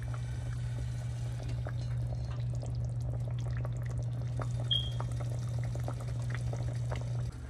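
Beef broth and red wine with vegetables and short ribs bubbling in an enamelled cast iron Dutch oven, with small irregular pops over a steady low hum. A brief high chirp sounds about halfway.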